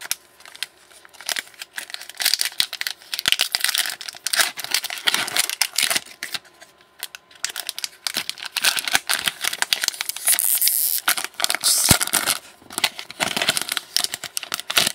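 Trading-card pack wrappers being torn open and crinkled by hand: a long run of irregular crackling rips and rustles, with one longer hissing tear about ten seconds in.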